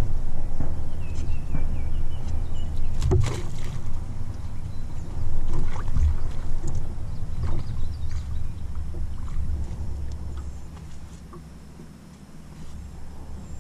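Handling noise in a small aluminum jon boat as a fish is released over the side: a low rumble with scattered knocks and clunks against the hull, the sharpest about three seconds in.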